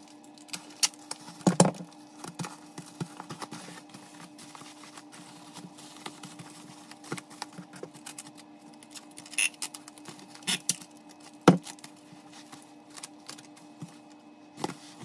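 Bubble wrap crinkling and crackling as it is wrapped around boxed makeup brush sets and taped down with a handheld tape dispenser, with a few sharper clicks and knocks, the loudest about one and a half seconds in and again near eleven and a half seconds. A faint steady hum runs underneath.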